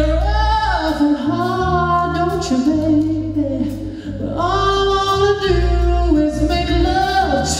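Soul music: a singer holding and sliding between long notes over a band with a steady bass line.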